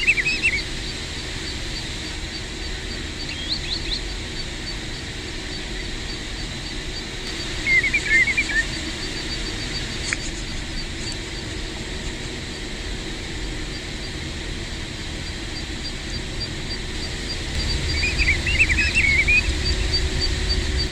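Pacific golden plovers calling: three bursts of several short, slurred whistled calls, near the start, about eight seconds in, and near the end. A faint regular ticking and a low rumble run underneath, the rumble growing louder near the end.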